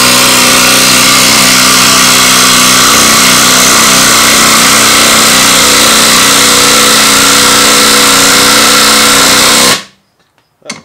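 Ryobi P263 18-volt impact driver hammering steadily on a 3/8 socket as it drives a long lag screw into a wooden board. It stops suddenly about a second before the end, with the screw head seated against the wood.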